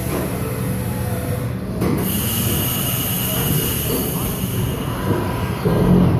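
Haas vertical CNC mill running with flood coolant splashing over the workpiece and vise. About two seconds in there is a click, then a steady high whine and hiss as the spindle moves up away from the part.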